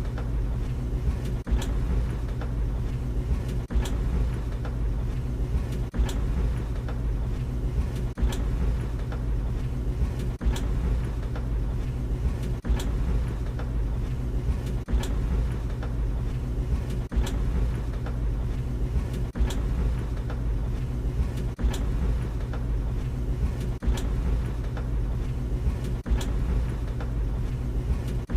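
Tumble dryer running: a steady low rumble and hum, with a sharp click or knock coming regularly about every two seconds.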